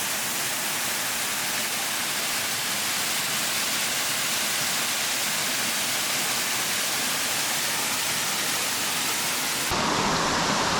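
Tarzan Falls pouring into its pool: a steady rushing hiss of falling water. About a second before the end it switches abruptly to a louder, fuller rush.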